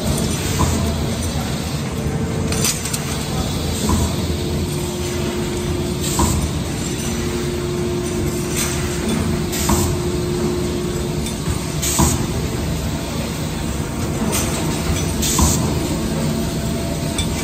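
Automated engine-bearing production machinery running: a steady mechanical hum, with short sharp hisses every one to three seconds from its pneumatic cylinders.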